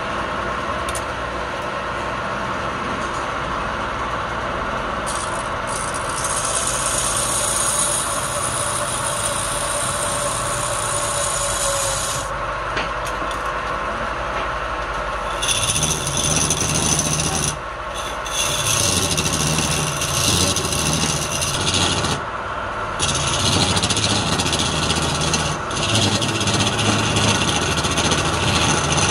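Wood lathe running steadily while a hand-held chisel cuts a spinning palm-wood blank, a rasping scrape of the tool on the wood. From about halfway the cutting is louder and comes in stretches, with short breaks near the middle and again later as the tool is lifted.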